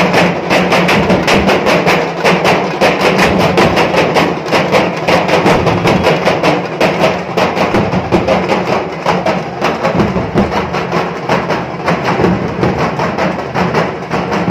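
Procession drums, metal-shelled two-headed drums beaten with sticks, playing a fast, dense rhythm of rapid strokes.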